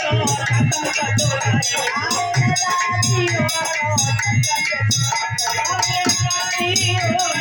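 Folk music with a steady drum beat and rattling percussion, with a pitched melodic line above.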